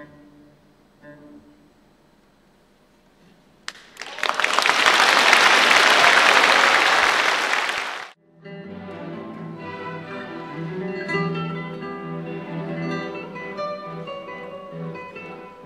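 Classical guitar and string orchestra playing softly and fading out. About four seconds in, audience applause rises, runs about four seconds and cuts off abruptly. Classical guitar and string orchestra then play again.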